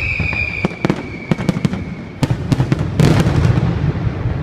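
Fireworks going off in a rapid string of sharp cracks, loudest about three seconds in. A high falling whistle dies away near the start.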